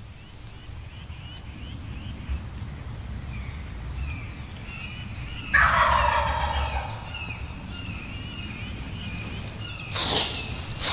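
A wild turkey gobbler gobbles once, a loud falling rattle, about halfway through, while small songbirds chirp faintly. Near the end come two brief rustling noises.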